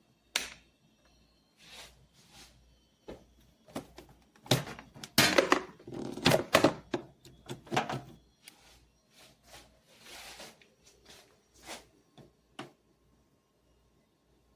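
A string of clicks, knocks and thuds from objects being handled, with a denser, louder stretch of knocking and rustling from about four and a half to eight seconds in.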